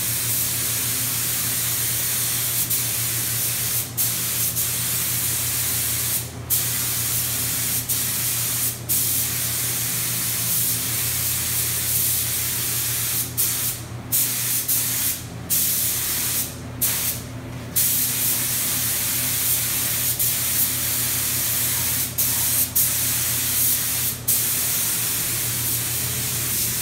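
Paint spray gun spraying clear coat onto a motorcycle frame: a steady loud hiss, cut by several brief gaps, over a steady low hum.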